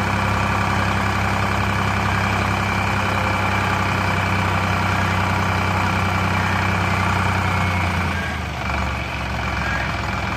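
Sonalika DI 50 tractor's diesel engine running steadily while its hydraulics tip a soil-laden trolley. About eight seconds in, the engine note drops lower and the sound dips briefly before settling.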